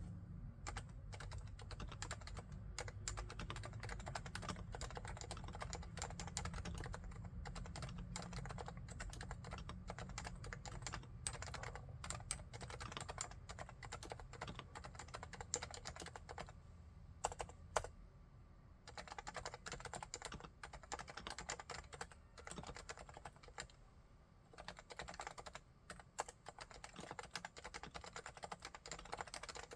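Continuous fast typing on a Realforce R2TLSA keyboard with silenced Topre electrostatic capacitive switches at 45 g, a quick run of soft, muted keystrokes. A brief pause a little past halfway is broken by two louder clacks.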